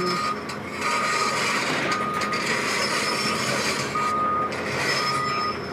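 A vehicle's reversing alarm beeping about once a second, each beep a steady high tone about half a second long, with a longer gap in the middle. Under it, a steady rushing noise of wind on the microphone.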